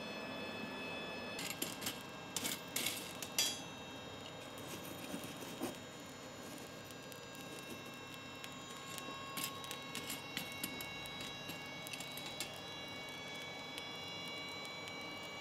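A few light metal clinks of steel handled at the anvil, then a faint steady hiss with scattered small crackles from the coal forge fire.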